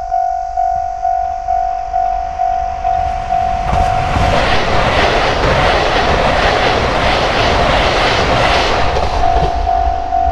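Level crossing warning bell ringing in steady repeated strokes, about two and a half a second. About four seconds in, a KiHa 261 series diesel express train passes, its engines and wheels clattering over the rail joints and drowning out the bell for about five seconds. The bell is heard again near the end.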